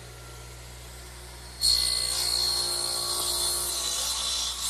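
Radial arm saw running free, then its blade cutting a bevel through a wooden cross piece: the sound jumps abruptly to a loud, high cutting noise about a second and a half in and holds steady.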